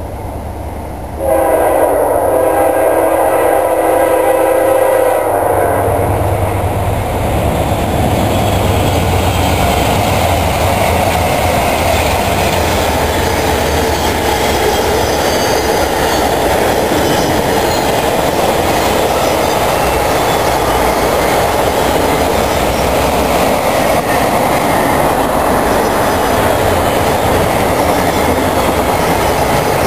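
CSX freight train's locomotive horn sounding a chord of several tones, starting about a second in and lasting about four seconds. The train then passes close by with a steady loud rumble and clatter of its wheels on the rails as a long string of autorack cars rolls past.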